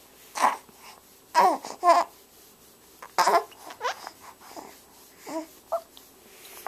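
Newborn baby fussing: about eight short, pitched cries and grunts, each under half a second, the loudest in the first two seconds.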